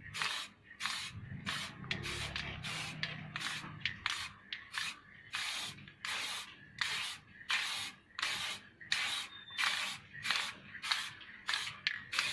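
Aerosol spray can hissing in short, quick bursts, about two a second, as red spray paint is sprayed onto dance-fan slats.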